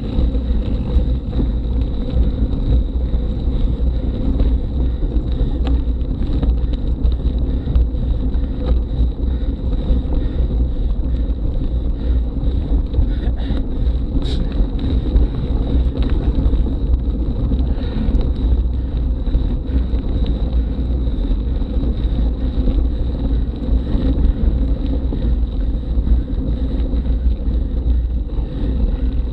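Steady wind rumble on an action camera's microphone, over the crunch of mountain-bike tyres rolling slowly up a gravel climb.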